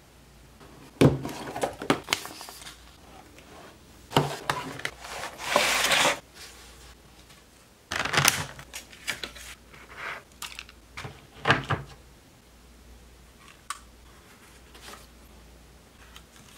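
Clear plastic clamshell and foam packaging being handled and pulled apart by hand: several bursts of crinkling and rustling plastic with clicks and knocks, the loudest a few seconds in, then only a few faint clicks near the end.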